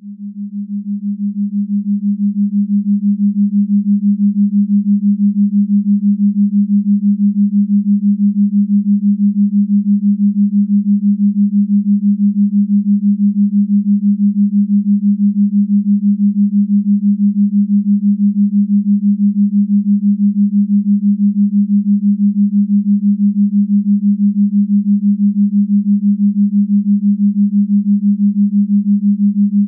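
A low, steady electronic tone, like a pure sine drone, with a fast even pulsing in its loudness. It fades in over the first couple of seconds, then holds at one pitch throughout.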